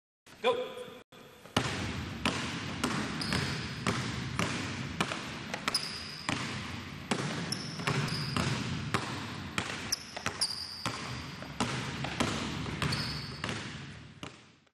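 Two basketballs dribbled together on a hardwood gym floor and passed through the legs while running, about two bounces a second, with short squeaks now and then.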